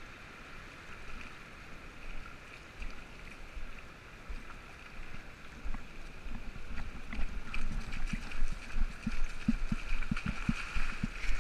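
Steady hiss of surf washing over a shallow beach, with wind rumble on the microphone. From about seven seconds in, a quick run of low thuds with clicks, like footsteps splashing through shallow water, grows louder.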